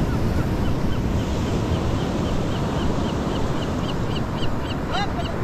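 Steady surf and wind noise on a beach, with wind buffeting the microphone. From about a second and a half in, a rapid, evenly spaced series of faint high chirps runs at about four a second.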